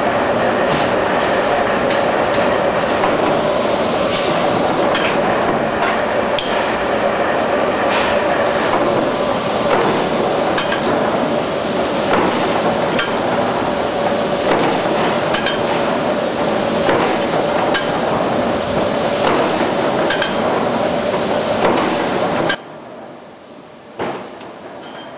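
Forge machinery handling red-hot steel bar: a loud, steady mechanical din with a constant hum and scattered metallic clanks. Near the end it cuts off abruptly to much quieter shop noise, followed by a single sharp metallic bang.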